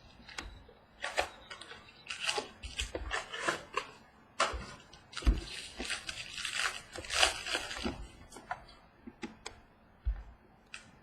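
A trading-card mini box being opened and its cards handled: irregular crinkling, rustling and small clicks of packaging and cards, busiest in the first eight seconds.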